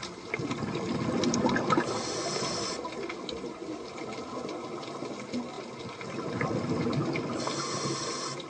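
Underwater sound of a scuba diver breathing through a regulator: exhaled air bubbling up in two swells about five seconds apart, each followed by a short hiss of inhaling.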